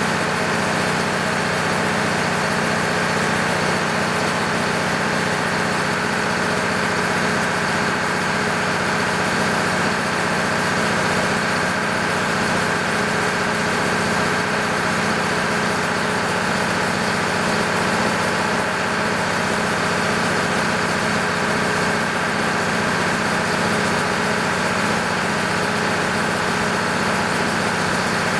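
Freshly overhauled MEP-006A military generator set's six-cylinder diesel engine running at a steady governed speed, with a steady high whine over the engine note.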